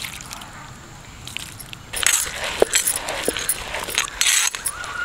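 Stone roller of a hand grinding stone (ammi kal) crushing roasted peanuts with salt and chillies against the flat stone: a gritty, clinking scrape. It starts about two seconds in and keeps on in irregular strokes.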